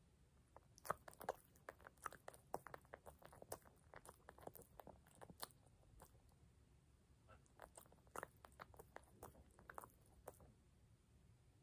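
A sleeping puppy smacking and licking its lips: a faint, irregular run of quick wet mouth clicks that starts about a second in, pauses briefly around the middle, and stops shortly before the end.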